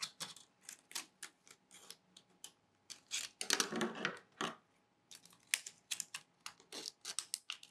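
Clear plastic bottle being cut into a ring, first with a utility knife and then with scissors: a run of irregular sharp clicks and crackles from the thin plastic, thickest a little past the middle.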